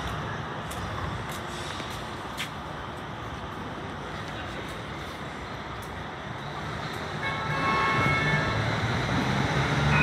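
Melbourne C-class (Alstom Citadis) tram moving slowly past, over steady street traffic noise. About seven seconds in, a cluster of high steady tones sets in and a low hum grows louder.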